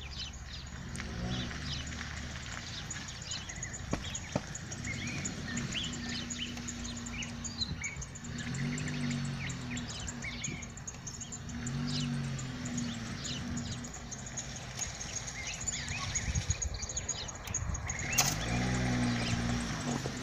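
Small birds chirping over and over, with a low hum underneath that swells and fades several times.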